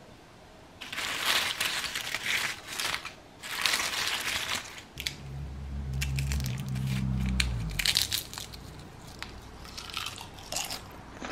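Crunching, crumpling noises in two long bursts. A low steady hum follows for about three seconds, then scattered clicks.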